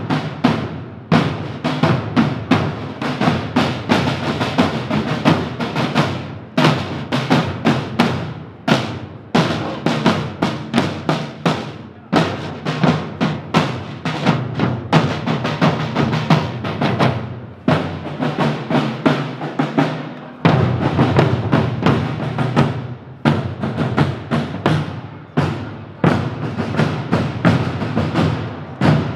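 A group of marching drummers beating parade drums in a fast, steady cadence, with short breaks every few seconds.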